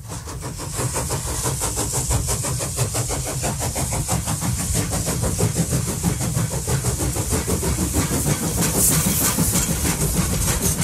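Railway locomotive engine running steadily with a fast, even pulse over a deep rumble and a constant hiss, building up over the first couple of seconds.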